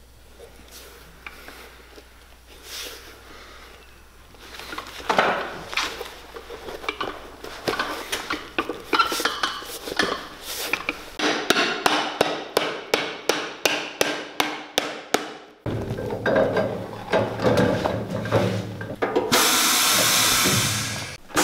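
Leather being rubbed and pressed down by hand onto a boot's bottom, then a run of evenly spaced sharp taps, about three a second, and a shop machine running with a steady rushing noise near the end.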